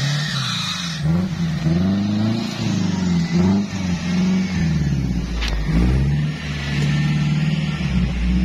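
Off-road-modified Daihatsu Taruna 4x4's engine revving up and down repeatedly as it drives through a muddy puddle, with water splashing in the first second.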